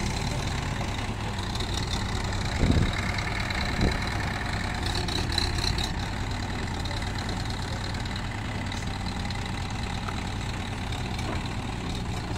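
Kirloskar diesel engine of an L&T-Case backhoe loader running steadily at low revs as the machine moves slowly, with two thumps about a second apart a few seconds in.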